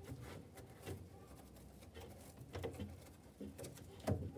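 Faint handling noises of a rope being worked around a wooden drawer cabinet to clamp a freshly glued joint: a few light knocks and rubs, the loudest near the end.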